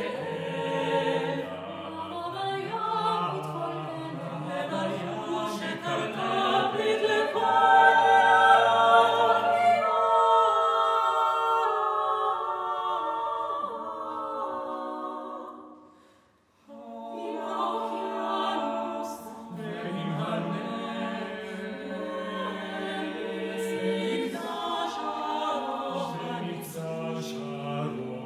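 Small mixed-voice chamber choir of eight singing a cappella in close harmony. About ten seconds in the low voices drop out, and the upper voices fade to a brief silence around sixteen seconds. The full ensemble then comes back in.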